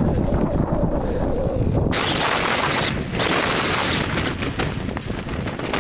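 Wind buffeting the microphone over mountain-bike tyres rolling on a rocky dirt trail. For the first two seconds a low rumble dominates. It then cuts abruptly to a brighter hiss with light crackling from gravel under the tyres.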